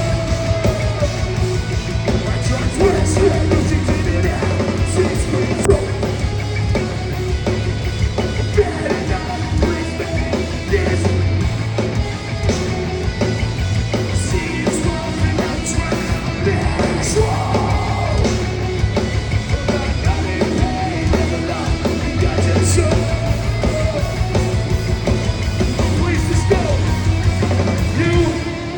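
Live hardcore punk band playing at full volume: distorted guitars, bass and pounding drums, with yelled vocals over the top.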